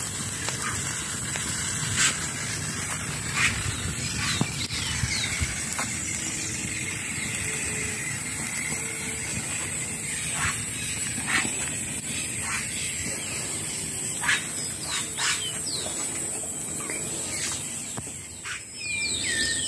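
Forest ambience: a steady high insect drone with scattered bird chirps, broken by a dozen or so sharp cracks and clicks.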